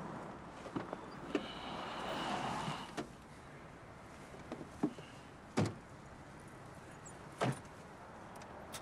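Car doors of an old compact sedan being shut as people get in: a few light clicks and a brief high creak near the start, then two solid door thuds about two seconds apart in the second half, over low street hiss.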